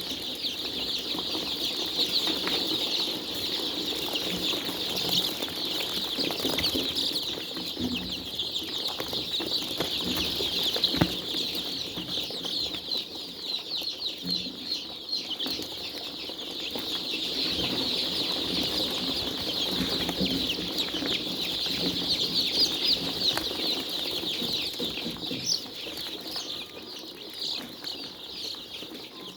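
A large flock of farmed chickens calling all together: a dense, unbroken chorus of high peeping with lower clucking beneath it. There is one sharp knock about eleven seconds in.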